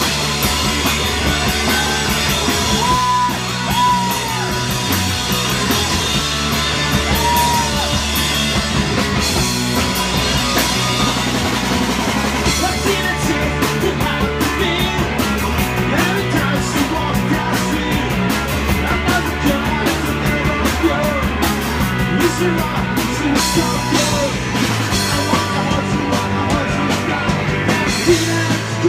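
Live punk rock band playing a fast song: a pounding drum kit, guitars and bass, with singing over them, heard from among the crowd in a small club.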